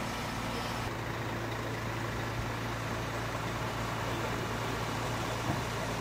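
A crane's engine running steadily with a low, even hum.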